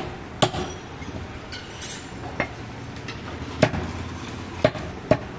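Heavy butcher's knife chopping mutton on a wooden log block: a series of sharp chops about a second apart.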